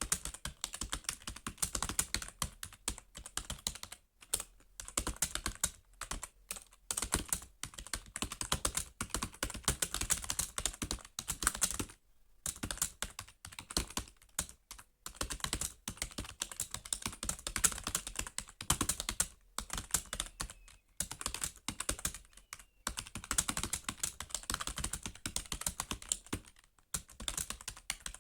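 Fast continuous typing on a computer keyboard: rapid key clicks in bursts, broken by brief pauses every few seconds.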